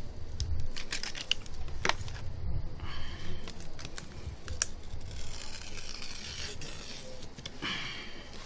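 Blade scraping and peeling plastic polarizer film off the glass of a phone screen, with small clicks and taps of the tool and scratchy stretches of film tearing away.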